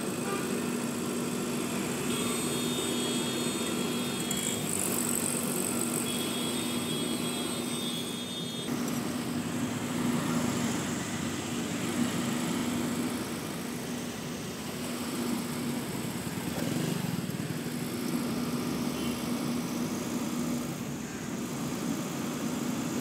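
Street traffic, with a vehicle engine idling as a steady low hum throughout.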